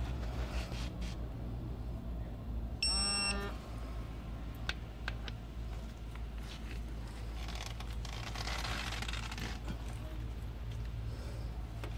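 Digital torque-angle wrench giving one short electronic beep about three seconds in. The beep is its signal that the set 120-degree angle has been reached while tightening a rocker-arm bolt. A steady low hum runs underneath, with a few light clicks and a stretch of rustling hiss later on.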